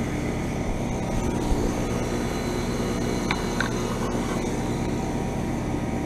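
Steady hum of outdoor heat pump units running: a neighbouring unit's compressor and fan drown out the frosted Carrier heat pump as it goes through its defrost cycle. A couple of faint ticks a little past three seconds in.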